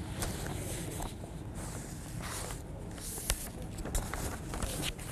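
Live outdoor ambience of a crowd standing around a coffin: low shuffling and movement noise with scattered short clicks, the sharpest about three seconds in, and no clear speech.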